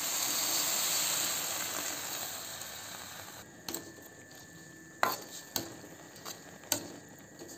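Water just poured into the hot wok sizzles with a loud hiss that fades and stops after about three and a half seconds. Then a metal ladle clinks and scrapes against the metal wok several times as the greens are stirred.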